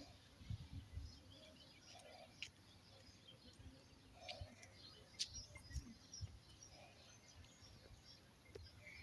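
Faint outdoor ambience with scattered short, distant bird chirps and occasional soft low thumps.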